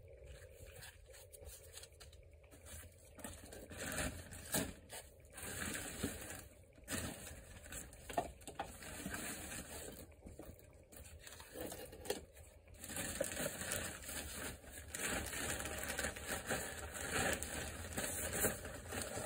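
Faint rustling and scraping of loose potting mix being worked by hand with perlite added, with scattered light ticks and patter of grains. It gets louder and busier about two-thirds of the way through.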